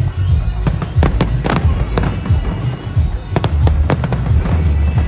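New Year fireworks going off in quick, irregular bangs over a continuous deep rumble of booms, with music playing underneath.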